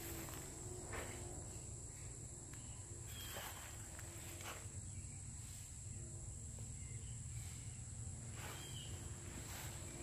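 Outdoor ambience: a steady high-pitched insect drone over a low rumble, with a few faint rustles of movement.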